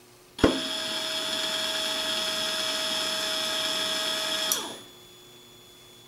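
Linear actuator's 24 V DC gear motor starting with a click and running with a steady whine for about four seconds, then winding down in pitch. It runs although its built-in limit switch has been opened: the zener diodes across the switch still let current through to the motor.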